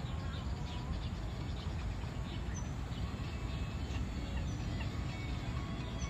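Scattered faint short chirps and thin whistles of birds over a steady low background rumble.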